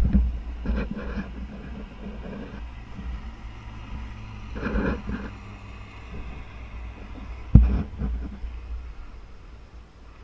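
Wind buffeting a GoPro camera's microphone as a paratrooper descends under canopy, a low rumble with rustling bursts from his gear and straps and one sharp knock about seven and a half seconds in.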